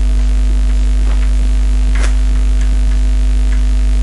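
Loud steady electrical mains hum, with a few faint short scratches and taps of chalk writing on a blackboard, the clearest about two seconds in.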